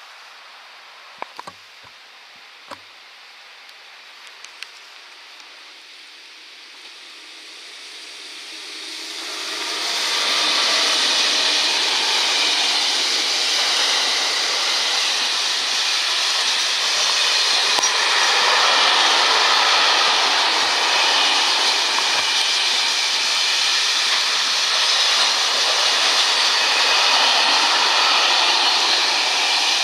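Container freight train passing close by at speed: a steady loud rush of the wagons rolling over the rails. It builds up about eight seconds in and stays loud from about ten seconds on. Before it arrives there are a few faint clicks.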